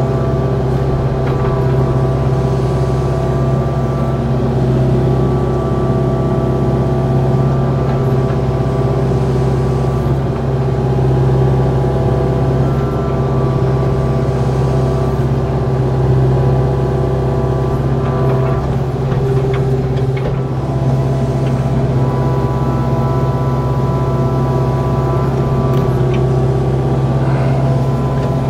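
Kubota KX057-4 mini excavator's diesel engine running steadily at working speed, with a few light knocks over it.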